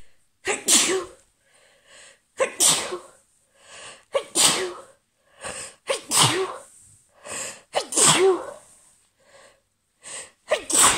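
A woman sneezing repeatedly in an allergy fit: about six loud sneezes, roughly two seconds apart, each preceded by a short catching breath.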